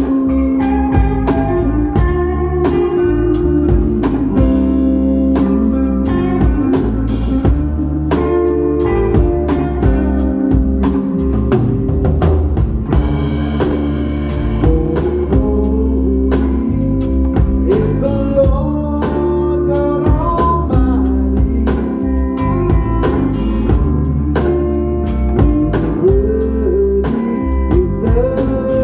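Live blues-rock band playing: electric lead guitar with bent notes over a bass guitar line and a drum kit keeping a steady beat.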